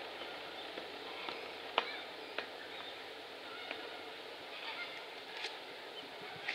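Faint, steady outdoor background noise with a few short, sharp sounds: two about two seconds in and two more near the end.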